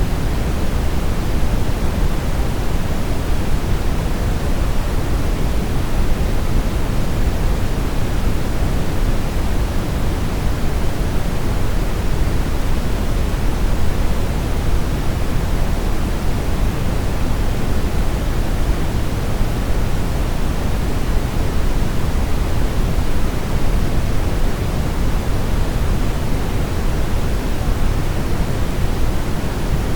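Steady synthetic brown noise: a deep, even rushing hiss, strongest in the lows and thinning toward the highs, with no change or events.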